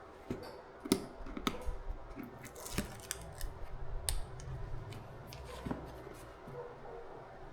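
Hands unpacking boxed camera gear: irregular sharp clicks, scrapes and short rustles of packaging being handled, with a louder click about a second in and another about four seconds in.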